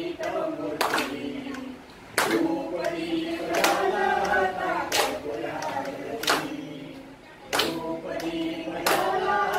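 A small group singing a devotional song to Lord Ganesh together, clapping their hands in time, one sharp clap about every second and a half.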